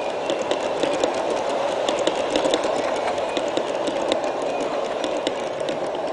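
G-scale model train, pulled by five Aristo-Craft ALCO diesel units, rolling steadily along the garden-railway track, its wheels clicking many times over the rail joints.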